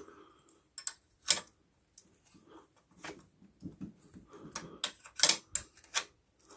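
Irregular sharp clicks and taps of hand-working a bicycle seat clamp and its nut, about a dozen of them, clustering more thickly in the second half.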